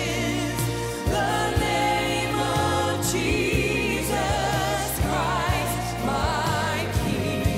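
Live worship music: a woman sings the lead with wide vibrato over a band with a steady drum beat and bass, with a choir behind her.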